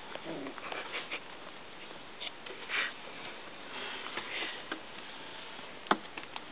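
Three-week-old Icelandic sheepdog puppy sniffing close to the microphone in short snuffles, with a brief squeak just after the start and soft scuffling. A sharp tap about 6 seconds in is the loudest sound.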